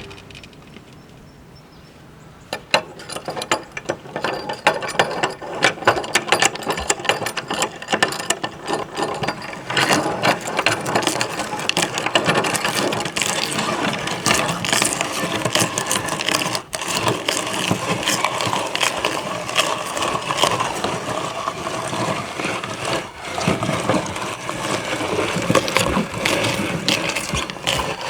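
Meat grinder mincing a cucumber: a dense, steady stream of clicks and crunches from the grinding mechanism working through the vegetable. It starts about two and a half seconds in and grows louder about ten seconds in.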